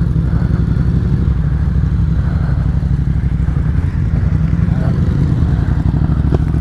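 Yamaha XSR700 parallel-twin motorcycle engine running steadily at low speed while the bike rides along a rough forest path.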